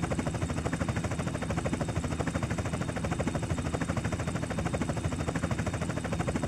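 Helicopter running, a rapid, steady chop of the rotor blades over a continuous engine noise.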